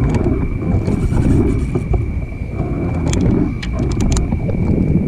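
Wind buffeting the microphone of a camera mounted on a kayak, a dense low rumble with water lapping against the hull, broken by a few sharp clicks about three to four seconds in. A faint steady high tone runs underneath.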